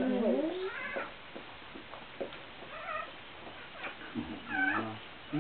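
Newborn puppies crying with short, high, squeaky mewing cries, several scattered through the moment while the mother dog licks a just-born pup.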